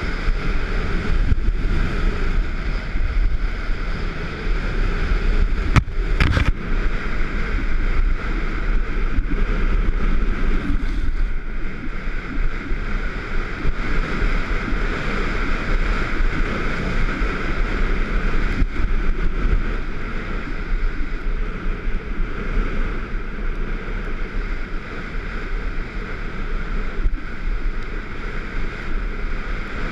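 Skis sliding over packed snow on a downhill run, a steady scraping hiss from the bases and edges, with wind buffeting the microphone as a heavy low rumble. A brief sharp knock comes about six seconds in.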